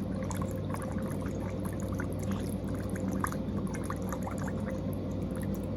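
Water trickling and gurgling steadily, with many small droplet-like ticks, over a steady low hum.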